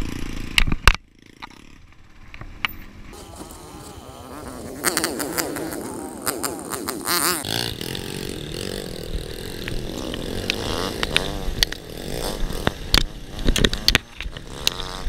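Yamaha Serow 250's air-cooled single-cylinder four-stroke engine running on a dirt trail ride, its revs rising and falling with the throttle. Scattered knocks and clatter from the bike over rough ground, and the sound drops away briefly about a second in.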